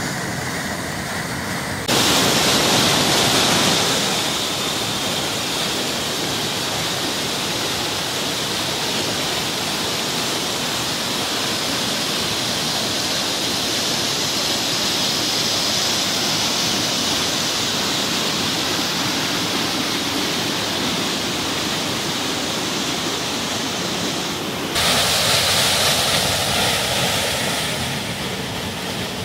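Whitewater cascade pouring over boulders into a plunge pool: a steady, dense rush of falling and churning water. It turns suddenly louder about two seconds in and again near the end, each time for a few seconds.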